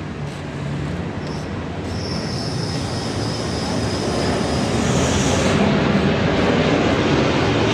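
Heavy Isuzu 6WF1 diesel engine running, its sound growing steadily louder, with a thin high whine over it from about two seconds in until just past five.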